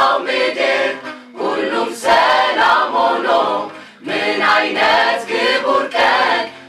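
A choir singing a Christian worship song in Amharic, seemingly unaccompanied, in phrases with short breaths between them about a second in, about four seconds in and near the end.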